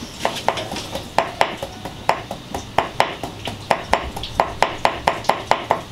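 Kitchen knife chopping red chilies on a round wooden cutting board: a steady run of sharp knocks, about four a second.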